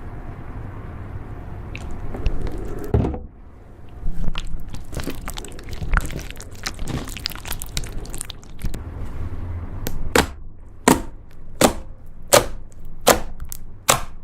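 Slime being squished and poked, giving a wet, low rumble at first, then many small crackles. It ends with a run of sharp pops, one about every three-quarters of a second, over the last four seconds.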